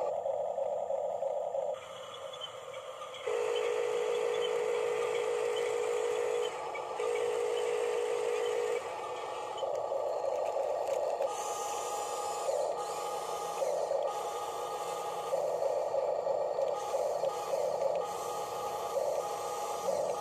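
Small electric motors and gearboxes of an RC toy bulldozer whining as it pushes loose soil with its blade. The whine stops and starts as the controls are worked, in short choppy spurts in the second half.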